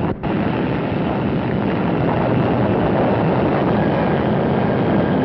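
Steady loud rumble of an atomic bomb test blast on an old newsreel soundtrack, with a brief dropout just after it begins.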